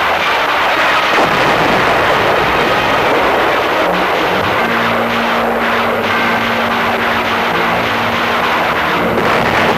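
Loud, steady roar of battle noise on an old wartime film soundtrack, with a steady low hum joining about halfway through.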